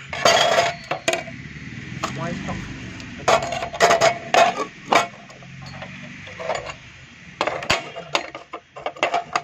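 Metal clinks and knocks as an abrasive cutting-off wheel is handled and fitted onto the spindle flange of a cut-off machine. The knocks come irregularly, some with a short ring.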